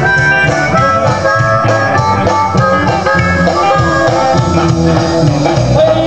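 Live band playing amplified rock music through the stage PA speakers, with guitars and drums.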